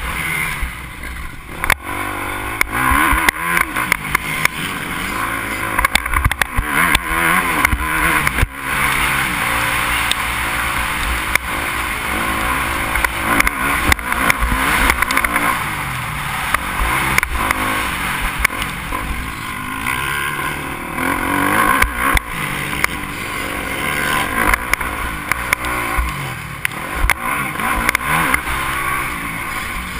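Yamaha motocross bike engine being ridden hard around a dirt track, its pitch climbing and dropping again and again through throttle changes and gear shifts, with scattered knocks from the bumps, heard from a helmet-mounted camera.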